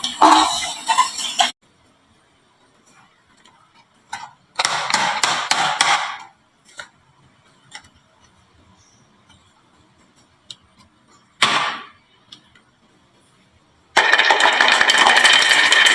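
Marbles clicking and clattering down a wooden marble run in a few short bursts, with near silence between them. Music starts near the end.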